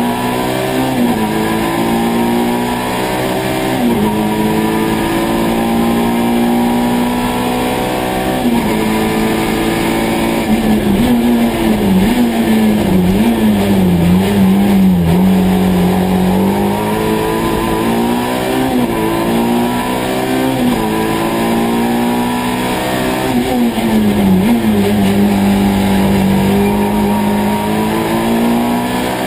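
Peugeot 205 1.3 Group A race car's four-cylinder engine, heard from inside the cabin, running hard at high revs under load. Its pitch holds mostly steady, dips briefly several times and wavers up and down for a few seconds in the middle.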